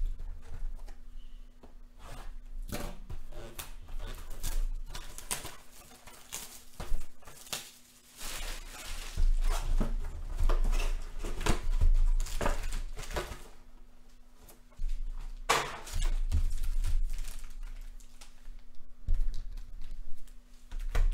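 Hands handling and opening a sealed box of trading cards: the wrapping tearing and crinkling, with irregular knocks and thunks of the cardboard box against the table.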